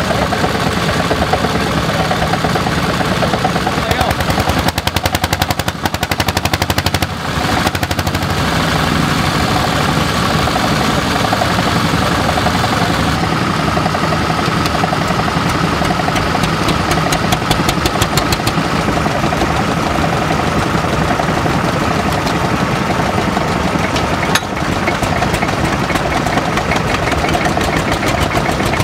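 Vintage single-cylinder stationary engines running, their exhausts making a fast, even popping beat.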